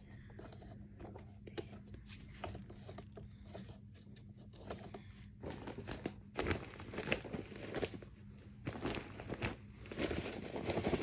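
Paper crinkling and rustling in short scrapes and clicks as scraps of paper are pulled out of a canister vacuum's bag compartment, busier and louder from about six seconds in.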